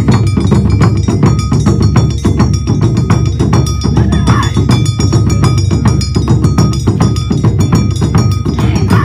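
Awa odori festival music: taiko drums and a ringing metal hand gong (kane) beating a fast, driving rhythm.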